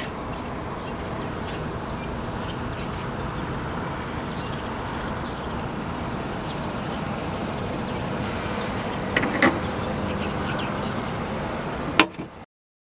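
Steady car noise, like a vehicle running or being driven, with a couple of sharp knocks about nine seconds in and a louder one near the end, after which the sound cuts off suddenly.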